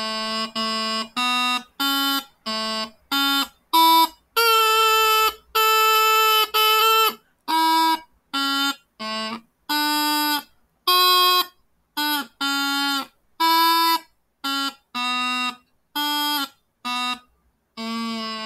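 A bagpipe melody played as a string of separate notes with short silent gaps between them. A few longer held notes come about a third of the way in.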